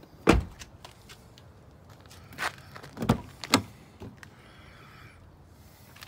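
Doors of a 2010 GMC Canyon pickup being opened and shut: a heavy thud about a third of a second in, then three sharper clunks and latch knocks between about two and a half and three and a half seconds in.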